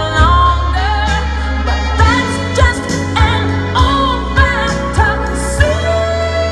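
A pop song with a sung melody over a steady beat and sustained bass.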